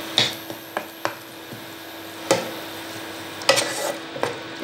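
Spatula scraping and knocking against a nonstick kadai while stirring a thick onion-tomato masala in scattered strokes, over a faint steady hum.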